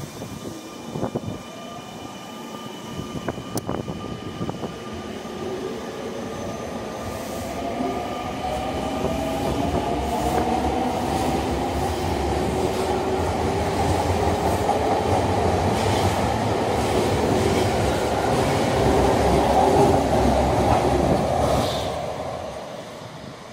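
Electric train accelerating. A stack of motor-whine tones rises in pitch and then holds as the sound grows louder, and it falls away near the end. A few clicks of wheels over rail joints come in the first seconds.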